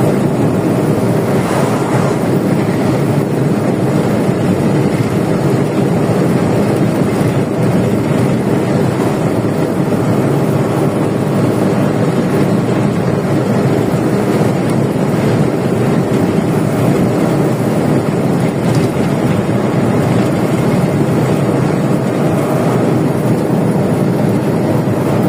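Steady engine and road noise inside a truck cab while cruising on an open highway, with an oncoming truck rushing past about two seconds in.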